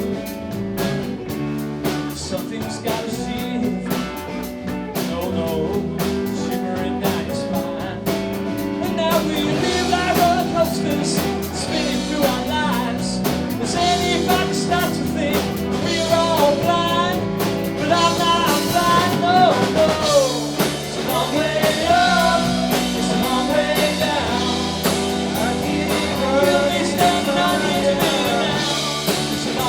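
Live rock band playing, with drum kit and guitars. A wavering lead melody line comes in over the band about nine seconds in.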